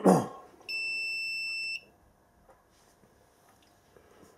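Electronic beeper of a Sinpo DRO II-3M digital readout display head giving one steady, high beep about a second long, as the unit powers up and runs through its start-up screens.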